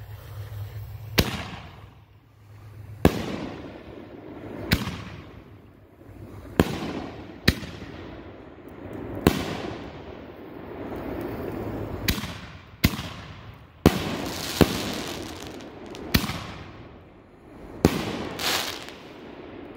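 Legend 'Taste My Venom' 4-inch canister firework shells launching and bursting: about a dozen sharp bangs spaced one to two seconds apart, several trailing off into a longer noisy decay.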